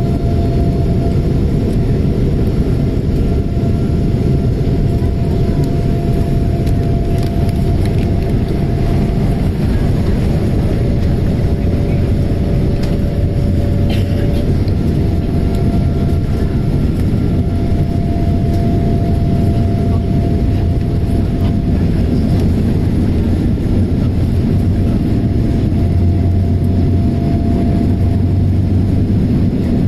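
Jet airliner engines at takeoff power heard from inside the passenger cabin: a loud, steady rumble with a thin, steady whine over it.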